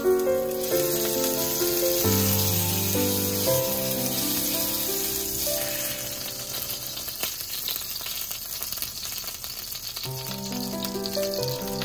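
Food sizzling and crackling in a hot frying pan, with background music that drops away for a few seconds midway and leaves the sizzle on its own.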